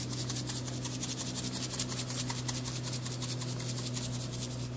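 Chili sauce sizzling and simmering in a hot aluminum pan: a rapid, even crackle of several small pops a second over a steady low hum.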